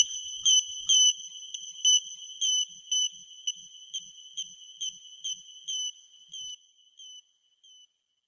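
High-pitched electronic alarm-like beeps, about two a second, each with a slight downward slide, fading steadily away until they stop near the end: the beep effect that closes out a rap track.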